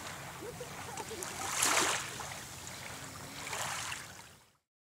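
Small waves washing onto a pebble shore, swelling twice, then fading out to silence about four and a half seconds in.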